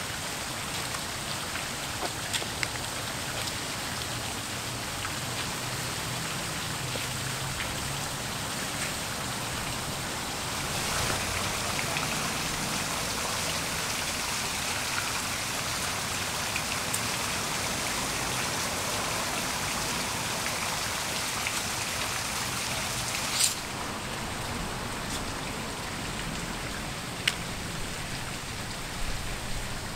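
Outdoor fountain's water jets splashing steadily into its basin, a little louder from about a third of the way in, with two sharp clicks in the last third.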